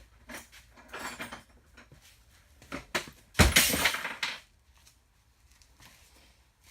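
Metal hand tools clinking and clattering as they are handled, with one louder clatter lasting about a second midway.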